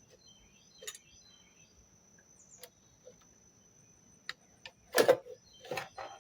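Scattered clicks and knocks of hands working on a window air conditioner as a cover is taken off its capacitor compartment, with one loud clunk about five seconds in and a cluster of knocks just before the end.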